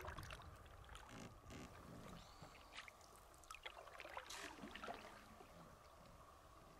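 Faint canoe paddling: quiet paddle strokes and drips in the water, with a few light, irregular knocks and ticks.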